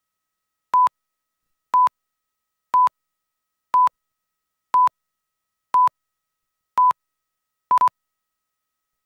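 Countdown beeps on a broadcast slate: eight short, steady tone beeps, one each second, the last one broken into two quick pips.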